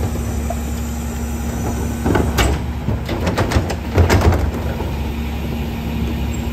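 Peterbilt New Way rear-loader garbage truck running at the curb, a steady diesel rumble with a faint steady hum over it, while blue plastic recycling carts are emptied on the rear tippers. Carts clatter and bang against the hopper about two seconds in and again about four seconds in.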